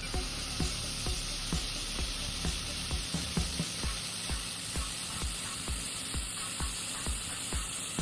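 Metal being welded, a steady crackling sizzle of the weld, with a regular low beat about twice a second underneath.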